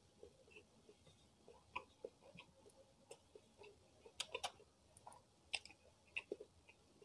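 Close-miked hand-eating sounds: fingers picking rice and fried fish off a plate and quiet wet chewing, heard as scattered soft clicks, with a few sharper clicks about four seconds in and again near five and a half.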